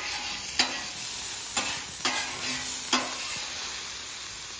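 Metal griddle scraper pushed across the hot steel top of a Camp Chef flat top griddle in about five sharp scrapes, over steady sizzling of grease and liquid. The griddle is being scraped clean after the bacon and sausage.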